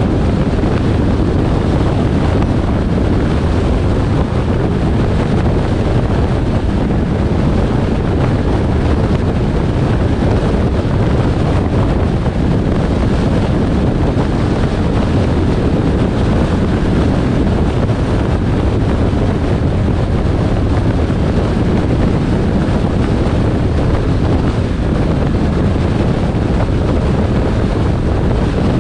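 Steady road and wind noise from a moving car, with wind rumbling on the microphone; an even, low-heavy rush with no breaks.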